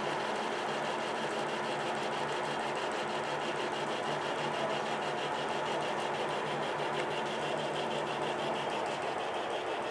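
Metal lathe running steadily while the tool cuts along a bent steel shaft: a constant motor and gear hum with the hiss and chatter of the cut.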